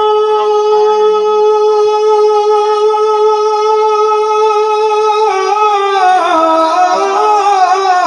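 A man singing a naat into a microphone, holding one long high note steady for about five seconds, then ornamenting it with wavering steps down in pitch.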